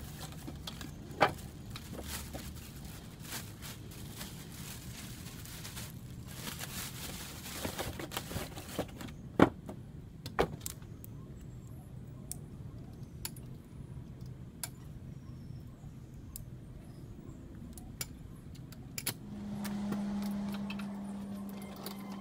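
Metal clinks and sharp knocks as a folding steel saw stand is taken out of its plastic bag and opened out, with plastic wrap rustling in between. A steady low hum comes in near the end.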